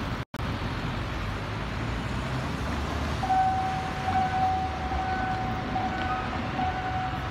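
Road traffic rumbling as cars cross the railway tracks. About three seconds in, the level-crossing warning signal starts: a steady electronic tone with a regular pulse, warning of an approaching train.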